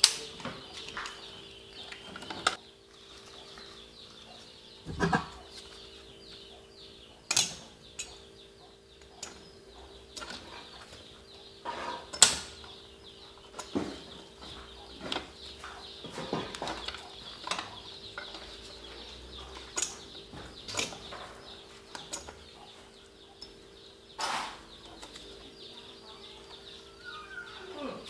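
Gloved hands fitting 20-ampere plug-in circuit breakers and their wires into a breaker panel: scattered sharp clicks and knocks at irregular intervals, the loudest about twelve seconds in, over a steady low hum.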